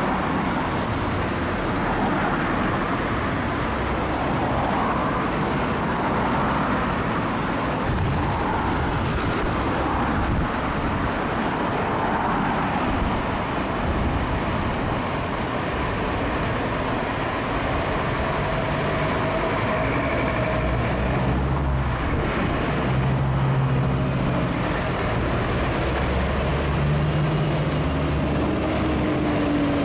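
Road traffic, with cars passing by. In the second half a Scania fire engine's diesel engine runs as it pulls out onto the road, its note rising briefly near the end.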